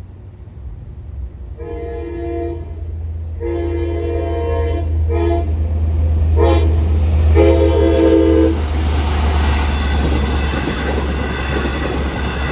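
Long Island Rail Road diesel locomotive sounding its horn for a grade crossing: five blasts, long, long, short, short, long, ending about eight and a half seconds in. The train then passes the crossing with a growing rumble of wheels on rail, over a low engine rumble that runs throughout.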